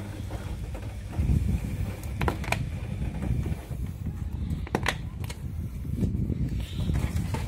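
Plastic clicks and low scraping, handling noise as the latches on an Electrolux condenser dryer's condenser unit are turned and the plastic condenser box is pulled out of its compartment. There are a few sharp clicks: a pair a couple of seconds in and another pair near the middle.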